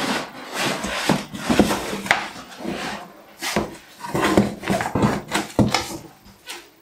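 Cardboard packaging scraping, rubbing and knocking in irregular bursts as a printer in moulded pulp end caps is slid out of its box, then hands rummage inside the carton.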